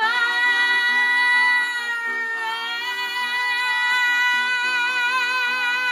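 A woman's singing voice belting one long held high note at the climax of a musical-theatre song, sliding up into it at the start, dipping slightly a little past two seconds in, then holding with widening vibrato, over accompaniment chords.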